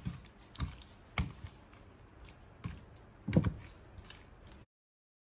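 Raw pork being rubbed with salt by hand on a ceramic plate: a handful of short, wet slaps and taps of meat against the plate, the loudest a little past halfway. The sound cuts off abruptly near the end.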